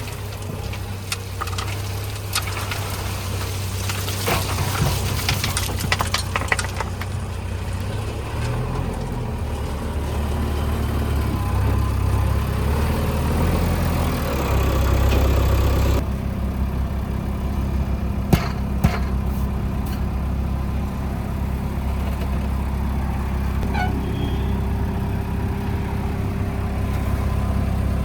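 Heavy diesel construction machinery running steadily at a low pitch, with clanking and knocks in the first half. About halfway through the sound changes abruptly to another steady engine note, with a couple of sharp knocks later.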